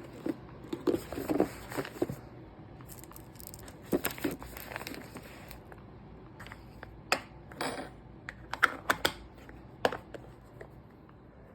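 Snack packages and food containers being handled and packed: plastic wrappers crinkling, with scattered sharp clicks and knocks of containers being set down. It tails off near the end.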